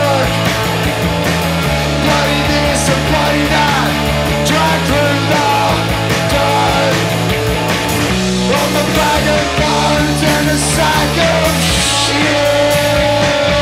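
A punk rock band playing live: distorted electric guitars, bass and drums at a steady loud level, with a singer's voice through the microphone.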